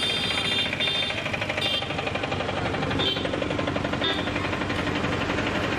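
Bajaj Maxima auto-rickshaw engine running at idle with a rapid, even clatter.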